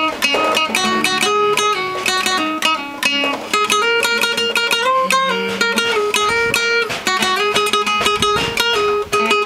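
Instrumental huayno passage on plucked strings, led by guitar: a quick plucked melody over strummed chords, with no singing.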